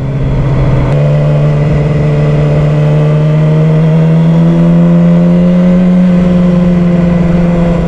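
Sportbike engine running under light throttle while riding, its note stepping up about a second in, then rising slowly and easing off slightly near the end. Low wind rumble on the microphone runs underneath.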